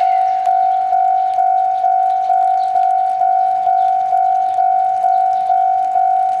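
Railway level-crossing alarm ringing, a steady ding repeated about twice a second.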